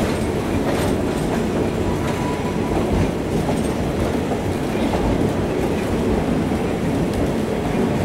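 Train rolling slowly along the track, heard from aboard a car: a steady rumble of the cars with wheels clacking over the rail joints.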